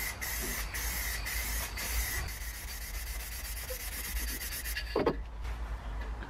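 Aerosol rattle can of clear coat spraying: a hiss with a thin whistle-like tone, in bursts with brief breaks, thinning out after about two seconds and stopping about five seconds in. A short whoosh follows just after it stops.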